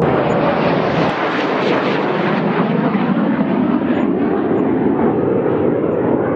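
Fighter jet flying past with a loud, continuous jet-engine rush whose high hiss slowly falls in pitch as it goes by.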